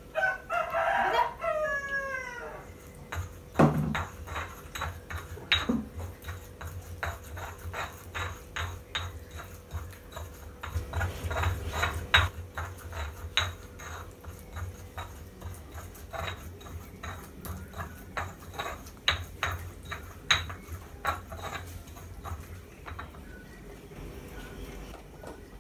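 Metal cooking utensil clinking and scraping against a pan on the stove in irregular taps, about one a second. About a second in, a short wavering whine rises over it.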